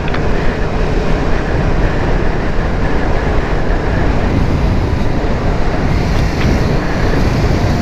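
Steady wind rush and engine noise from a sport motorcycle being ridden at cruising speed, with low wind buffeting on the helmet microphone.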